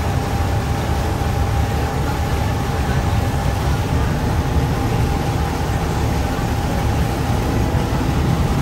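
Engines of a Thames Clippers river boat running, heard on board: a steady low rumble with a faint constant whine above it.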